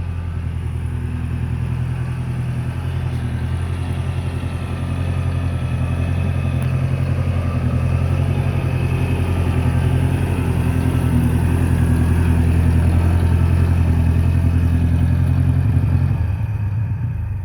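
1948 farm tractor's engine running steadily as the tractor drives up, growing louder as it nears, then dying away near the end as it is shut off.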